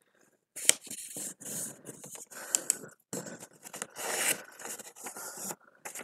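A sheet of paper being handled and folded by hand, rustling and scraping across the tabletop in irregular bursts, with a few sharp ticks as it is creased.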